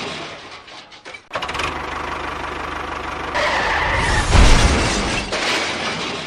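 An engine starts about a second in and runs with a fast, even beat. It gets louder a little past halfway, with a loud deep surge soon after.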